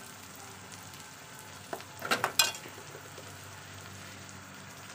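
Fish and ground spices sizzling in hot oil in a steel kadai, a steady frying hiss. A short cluster of clicks and scrapes from a spoon in the pan comes about two seconds in.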